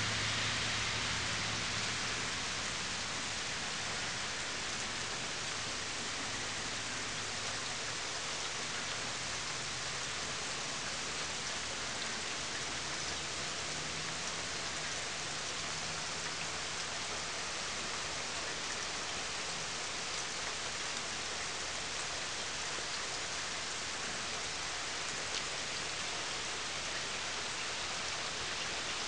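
Steady rain falling on garden plants and grass: an even hiss, with a few louder drops near the end.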